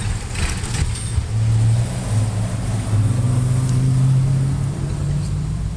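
Road vehicle engine running and pulling away, a low steady hum that swells about one and a half seconds in and again around three to four seconds.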